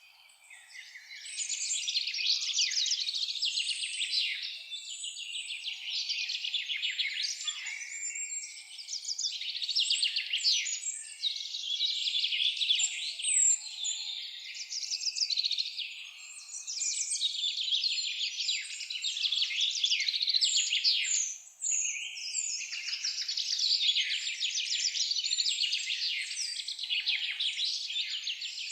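A dense chorus of songbirds singing rapid trills and chirps, nearly continuous, with a brief lull about 21 seconds in.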